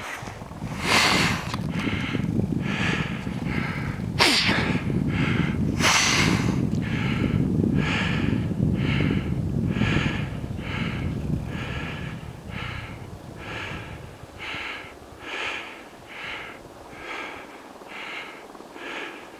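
Rapid, heavy breathing close to the microphone, a puff about every half second, growing fainter towards the end. Wind rumbles on the microphone for the first dozen seconds, with a few louder gusts.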